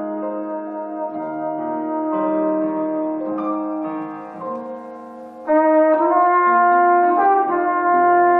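Background music: slow, held notes in several parts moving together from chord to chord, growing clearly louder about five and a half seconds in.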